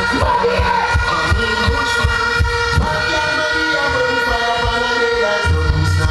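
Music played loud over a sound system, with a steady kick-drum beat and held tones above it; a heavy bass line comes in about five and a half seconds in.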